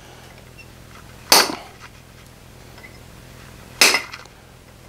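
Two sharp metallic hammer blows on a ball punch set on hot steel bar stock over the anvil, about two and a half seconds apart, each with a brief ring. The punch is raising a centred dimple for a screw hole.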